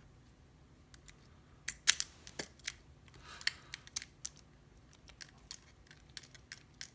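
Metal keys and brass padlocks clicking and clinking as they are handled and a key is tried in a lock, with a cluster of sharp clicks about two seconds in and fainter ticks after.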